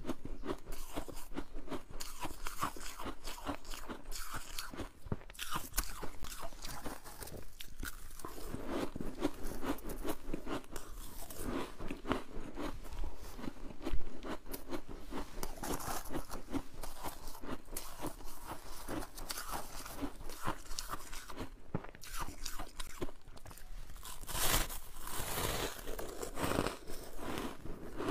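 Freezer frost being bitten and chewed: a steady run of crisp, icy crunches, with one sharp, loud crunch about halfway through.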